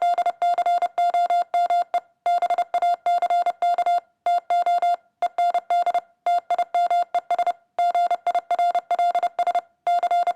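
Morse code sent as an electronic beep tone: a single steady pitch keyed on and off in rapid short and long beeps (dots and dashes), in groups separated by brief pauses.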